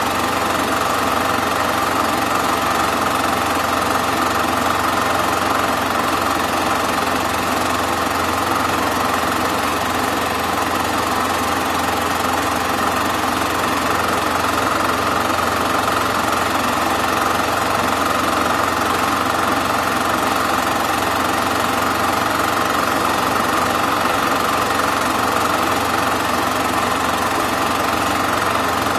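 Super 8 film projector running: a steady mechanical whirr of the film transport that does not change.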